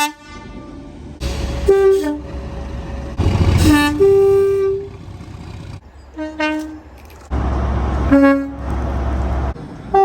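Train horns sounding a series of short blasts, several of them two-note high–low calls, with one longer held note about four seconds in. Between the blasts there is the low rumble of trains, which changes abruptly from one blast to the next.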